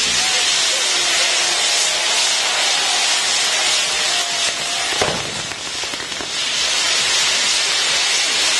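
Ground-firework fountains on a set piece spraying sparks with a loud, steady hiss, and one sharp crack about five seconds in.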